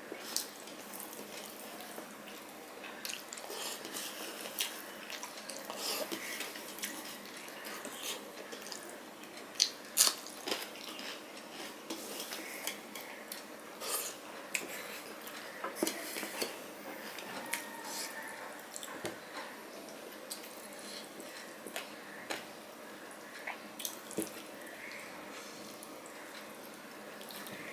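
Eating by hand from a stainless steel plate: scattered light clinks and taps of fingers and rice against the steel, with chewing between them. Two sharp clinks about ten seconds in are the loudest.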